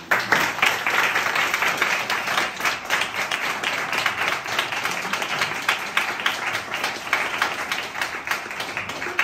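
Audience of a few dozen applauding: many hands clapping, breaking out all at once and easing off slightly near the end.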